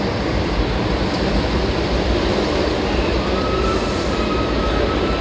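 Loud, steady rumble of a subway train at an underground station platform. A faint high whine comes in about three and a half seconds in, with a short hiss near four seconds.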